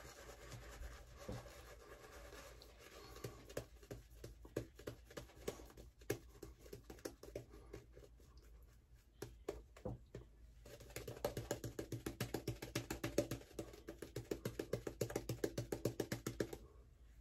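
Shaving brush lathering soap on a face. It starts with scattered scratchy strokes, then turns brisk and rhythmic, about six strokes a second, for the last five seconds or so.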